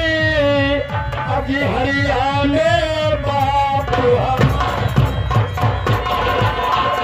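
Live folk theatre music: a man sings a drawn-out melodic phrase over fast hand-drum strokes for about the first four seconds. After that the voice stops and the drums play on with a harmonium underneath.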